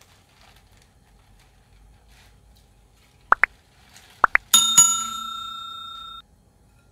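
Subscribe-button animation sound effect: two pairs of quick rising pops, then a bell ding that rings for about a second and a half and cuts off abruptly.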